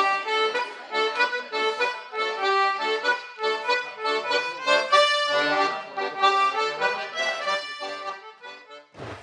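Instrumental folk tune with an accordion carrying the melody in sustained notes at a lively pace. Hand drumming cuts in at the very end.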